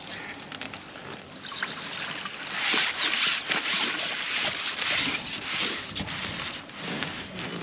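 Lake water splashing and pouring off a landing net as a hooked bream is scooped up and lifted, loudest from about two and a half to six seconds in, over close rubbing and handling noise.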